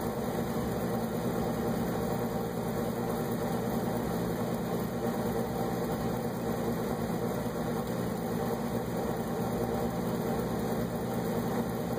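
Bard gas furnace running steadily with its burner lit, a constant low hum with blower noise over it.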